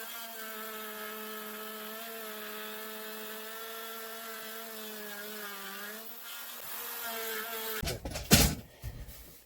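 Electric wood router motor running at a steady pitch, its pitch sagging for a moment about two-thirds of the way through as it bites into the wood. It cuts out briefly, runs again, and a couple of sharp knocks follow near the end.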